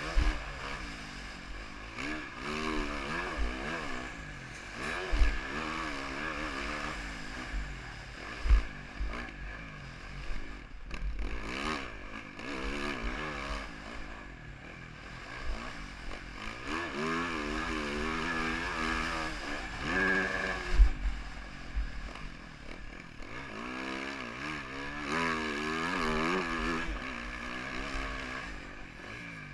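A 2014 Yamaha YZ450F's single-cylinder four-stroke engine being ridden hard, revving up and falling off again and again as the rider works the throttle. Scattered low thumps are mixed in.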